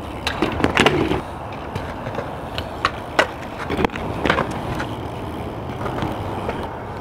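BMX bike tyres rolling over a concrete skatepark, a steady rumble broken by sharp clacks and knocks of the bike hopping and landing, several close together in the first second and more between about two and a half and four and a half seconds in.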